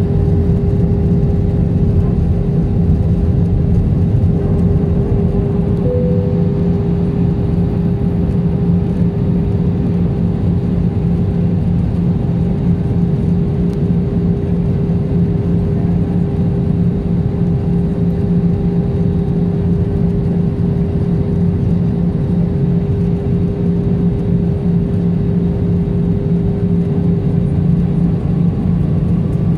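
Steady cabin noise inside an Airbus A320 on descent: a low engine drone with a constant hum, over the rush of airflow past the fuselage.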